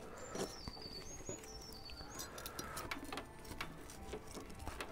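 Faint bird chirping: a run of short, high, falling notes in the first two seconds. Light knife clicks on a wooden cutting board are scattered through it as a grilled steak is sliced.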